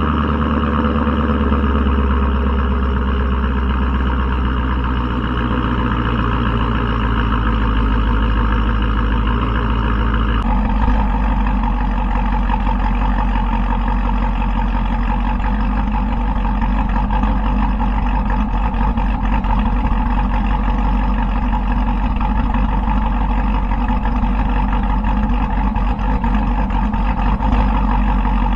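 Dodge Durango R/T's 5.7 Hemi V8 with an aftermarket Thump cam, long-tube headers and Borla exhaust, idling after a cold start. About ten seconds in, the idle note steps down and turns choppier.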